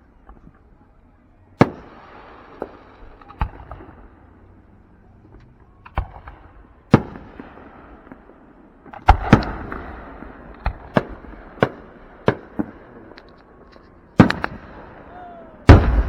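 Aerial fireworks bursting in an irregular series of sharp bangs, each with a short echoing tail. The bangs come closer together about nine seconds in, and two of the loudest come near the end.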